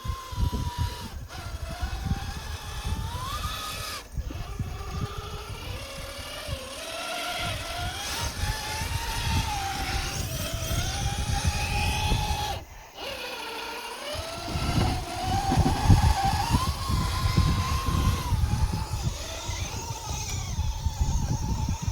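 Electric motor and drivetrain whine of a Rlaarlo JK07PRO 1/7-scale RC trail truck driving, its pitch rising and falling with the throttle, over a rough low rumble. The whine cuts out briefly a few times, longest about 13 seconds in.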